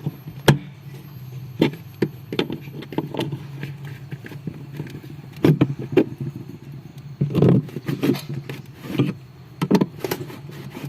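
Irregular clicks and knocks of plastic parts and ice being pulled and handled inside a two-door refrigerator, over a steady low hum.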